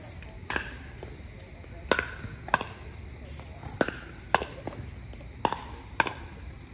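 Pickleball rally: paddles striking the plastic ball back and forth, a string of about seven sharp pops at uneven intervals of half a second to a second, some of them likely the ball bouncing on the hard court.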